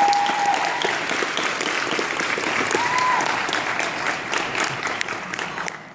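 Audience applauding, with a couple of brief cheers; the clapping dies down near the end.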